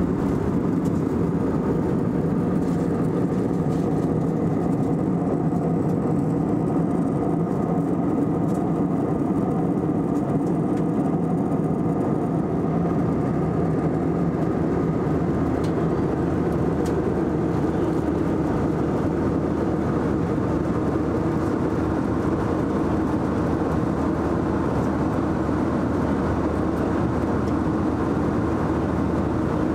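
Steady drone of airflow and jet engines inside the passenger cabin of an Airbus A321-200 airliner in flight.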